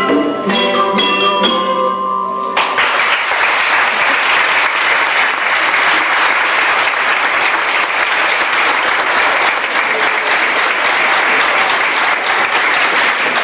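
A children's ensemble plays the last notes of a piece, ringing pitched notes that stop about two and a half seconds in; an audience then applauds steadily for the rest of the time.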